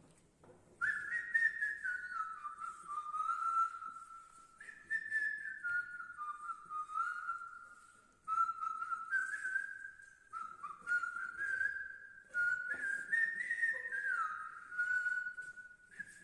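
A man whistling a Hindi film song tune by mouth: a clear single-note melody in phrases that start high and step downward, with short breaks between phrases.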